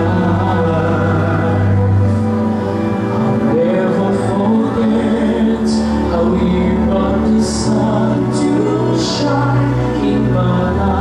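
Two men singing a duet into microphones over musical accompaniment, the voices holding long notes over steady low bass notes.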